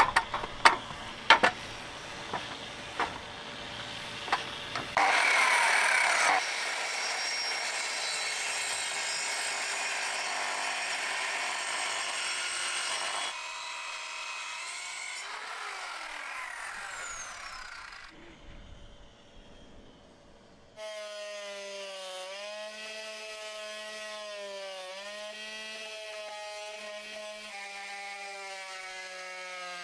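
Hand work on a wooden boat's rotten timber: a run of sharp knocks at first, then a long stretch of steady rasping as the wood is cut. In the last third, music with a held, wavering melody takes over.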